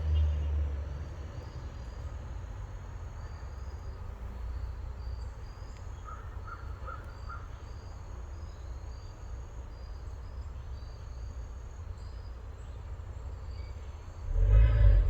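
A vehicle engine's low rumble dies away within the first second, leaving insects chirping steadily and a few short chirps about six seconds in. Near the end a loud low engine rumble surges up briefly.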